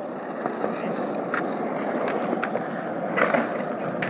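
Skateboard wheels rolling over rough concrete, a steady rumble, with a few sharp knocks scattered through it.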